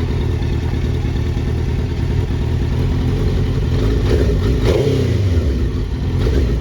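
Suzuki GSX-R1000 motorcycle's inline-four engine running, revved up once about four seconds in and falling back to idle.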